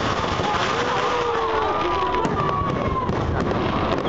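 Fireworks display going off: a dense, steady crackle of many small bursts and pops.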